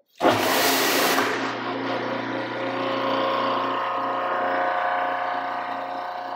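Wall-mounted pressure washer's motor and pump starting up and then running with a steady hum. The start opens with a loud hiss for about a second.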